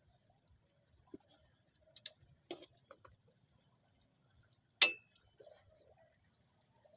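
Scattered light clicks and knocks, with one sharp, louder click about five seconds in that rings briefly.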